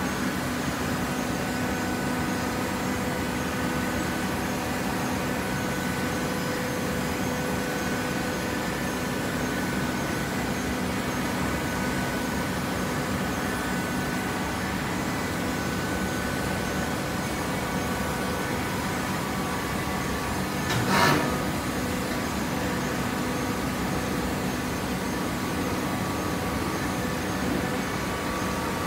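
Hydraulic shredded-paper baler running: a steady machine hum with several held tones from its pump and motor. One short, louder noise about two-thirds of the way through.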